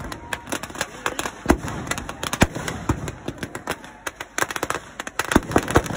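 Firecrackers bursting in a burning Ravan effigy: an irregular string of sharp bangs and pops, coming thicker near the end.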